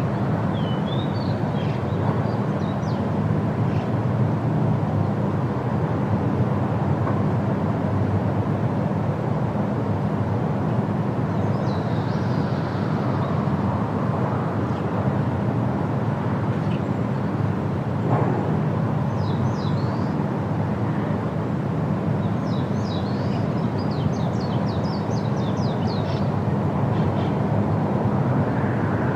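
Steady rushing of a large waterfall, the Rhine Falls, with heavy water pouring down continuously. Small birds chirp high above it a few times, with a quick run of chirps about three quarters of the way through.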